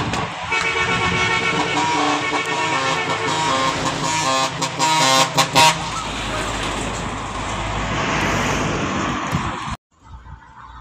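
Semi-truck horn sounding a run of changing notes, like a short tune, for about five seconds, followed by a steady rush of noise that cuts off suddenly near the end.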